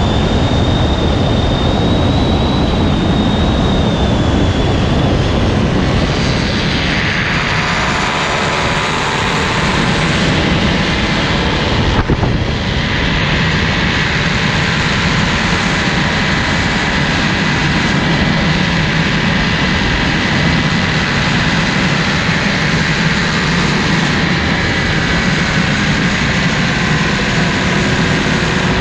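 Paramotor engine and propeller running steadily in flight, mixed with wind rush on the microphone. The engine note shifts in pitch a few seconds in, and there is a brief bump about twelve seconds in.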